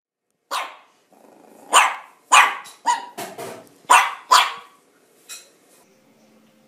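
A puppy barking in a run of about seven short, sharp barks over the first four and a half seconds, then falling quiet.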